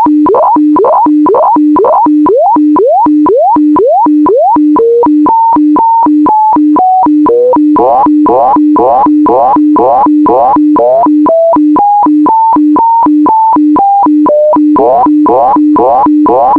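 HF radiofax (shortwave weather-fax) transmission: a steady low tone broken by sharp ticks about twice a second, with higher tones that sweep upward on each line, then hop and step between pitches as the image content changes.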